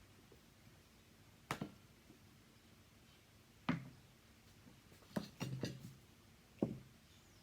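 Kitchen utensils and dishes knocking and clinking as the finished salad is handled for serving: a few separate knocks, with a quick run of them about five seconds in.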